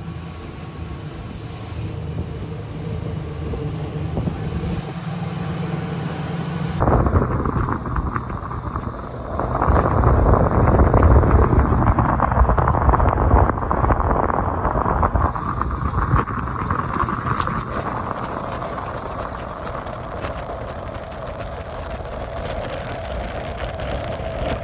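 An engine running steadily with wind rushing over the microphone. About seven seconds in the sound cuts abruptly to a louder, rougher rush of wind and low engine rumble, which grows louder again a couple of seconds later.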